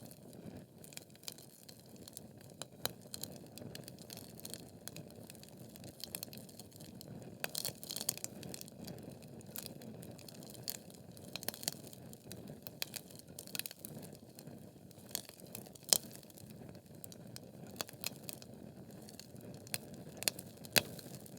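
Wood fire burning in a fireplace: a steady low rush of flames under irregular crackles and pops from the burning logs, with a sharp louder pop about three-quarters of the way through.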